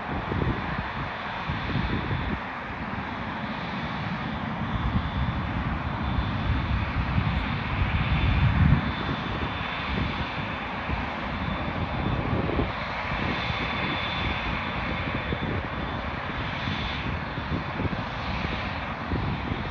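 Boeing 787-10's twin turbofan engines running at taxi power as the airliner turns and taxis past: a steady jet roar with a thin high whine, loudest about halfway through, when the aircraft faces the listener.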